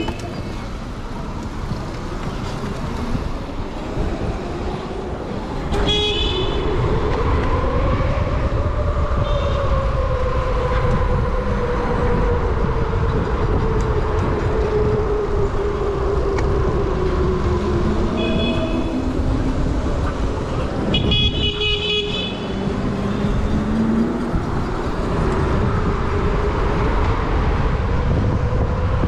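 Wind rushing over the microphone and road noise while riding in traffic, getting louder about six seconds in. A whine slowly rises and falls through the middle, and short high horn toots sound several times.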